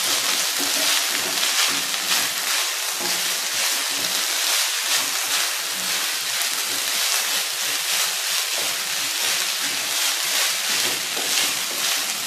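Cooked rice and cumin seeds sizzling in oil in a non-stick kadhai while a spatula stirs and tosses it. The result is a steady frying hiss with quick, repeated stirring strokes.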